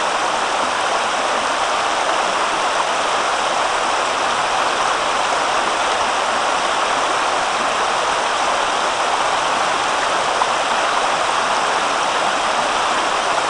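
River water rushing steadily over a shallow gravel run.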